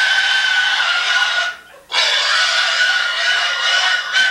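A pig squealing in protest at being handled: two long, loud, high-pitched squeals, broken by a short gap for breath about a second and a half in.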